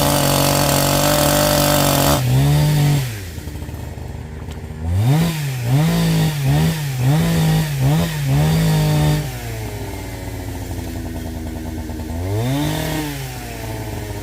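Chainsaw running at full throttle for about two seconds, then falling to idle. It is revved in a run of quick blips, drops back to idle, and is revved once more near the end.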